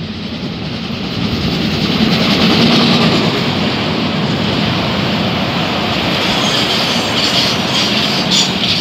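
BLS electric passenger train running past close by over a steel railway bridge: a steady rush of wheel and rail noise that swells over the first two seconds and stays loud.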